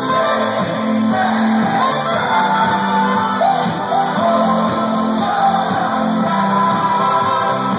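Live band performing: a lead singer over keyboards, electric guitar and bass, heard loud from the audience in a large hall.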